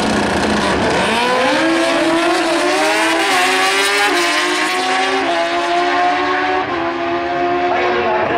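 A pair of Top Bike drag-racing motorcycles launching off the line about a second in. Their engines rev up sharply and climb in pitch, shifting up through the gears several times, each shift a short drop in pitch before it climbs again.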